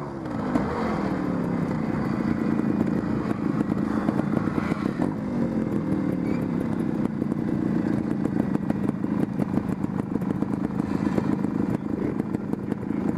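Trials motorcycle engine running at low, steady revs as the bike is ridden over rough grassy ground, its pitch falling in the first second as the revs drop. Frequent short clicks and rattles run over it.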